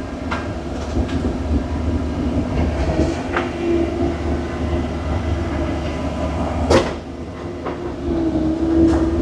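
Skid steer's diesel engine running under load as it backs up a slick slope, with a steady whine that swells twice and several sharp metallic knocks, the loudest about two-thirds of the way through.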